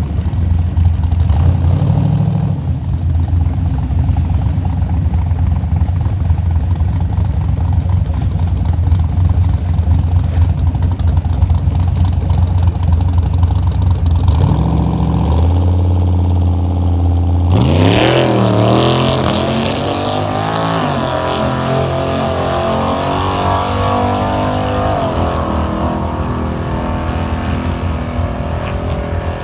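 Car engine running steadily at a low pitch, then about eighteen seconds in it revs up, the pitch rising and climbing in steps for several seconds before settling.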